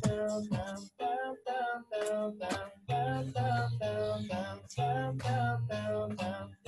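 Background music: a song with a sung vocal of held, stepping notes over a beat.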